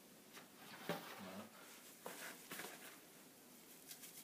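Near silence with faint rustling and a few soft knocks as a person moves and crouches. Near the end, gloved hands begin working damp coconut coir in a plastic basin.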